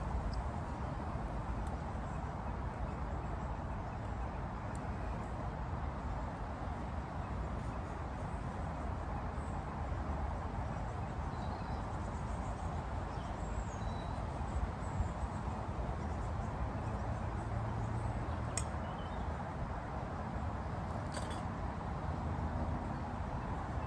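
Steady outdoor woodland ambience, a low even rushing of air and leaves, with a few faint high bird chirps in the middle and two light clicks of metal camp gear being handled in the second half.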